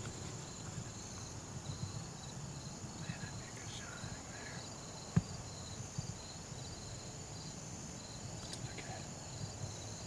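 Steady insect chorus: a continuous high trill with a lower, evenly pulsing chirp under it, over low rumbling handling noise. A single sharp click sounds a little past halfway, with a few fainter ticks around it.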